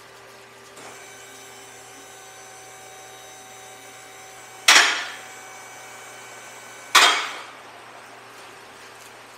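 Two loud, sharp knocks about two seconds apart, each ringing briefly as it dies away, over a steady background hum with a faint whine.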